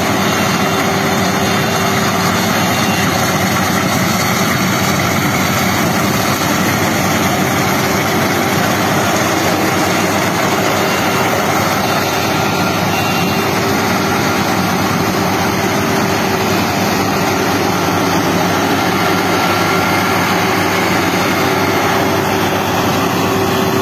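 Combine harvester running steadily, a loud, even engine and machinery drone with no change in pitch or load.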